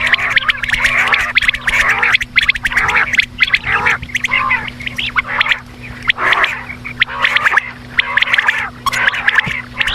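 Quails calling together in a continuous, dense chatter of short, rapid calls, over a steady low hum.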